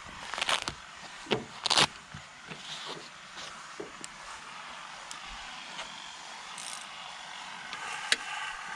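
A few sharp clicks and knocks, three of them close together in the first two seconds, then faint scraping and handling noise with one more click near the end: hands working with tools and parts in a car's engine bay.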